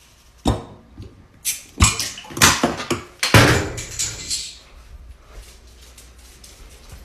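A series of thumps and knocks, about six in the first four seconds, each trailing off in a short rustle, then only faint background noise.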